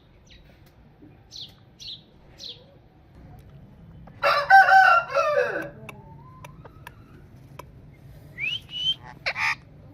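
A rooster crows once, about four seconds in, a single cock-a-doodle-doo that drops in pitch at the end. Short bird chirps come before it, and a few rising whistled calls come near the end.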